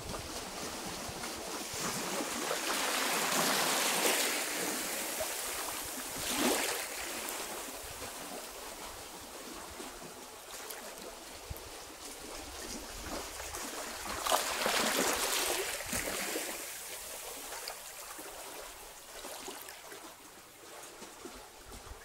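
Small waves washing in over a rocky shoreline and trickling back off the rocks: a steady rush of water that swells louder as each wave comes in, most strongly about three to four seconds in and again around fifteen seconds, and settles quieter near the end.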